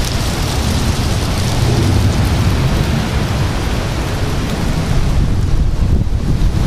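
Strong thunderstorm wind gusting across the microphone: a loud, steady rushing noise with a heavy, fluctuating low rumble.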